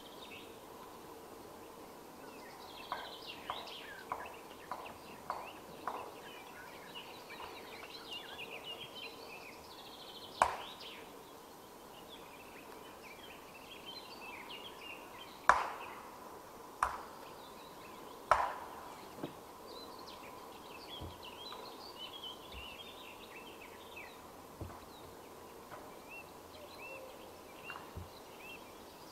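Sharp knocks on a round log beam of a timber frame. A quick run of lighter knocks comes about three seconds in, then a few heavy single strikes spaced a second or more apart, the loudest about halfway through. Birds chirp throughout.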